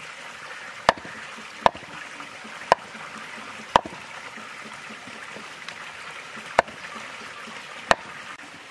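A heavy knife chopping raw turkey meat on a chopping block: six sharp chops at uneven intervals, over a steady background hiss.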